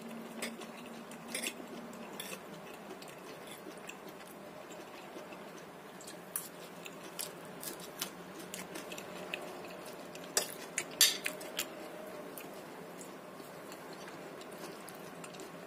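Cutlery clinking against a plate now and then while someone eats, with several clinks close together about two-thirds through, over a low steady background.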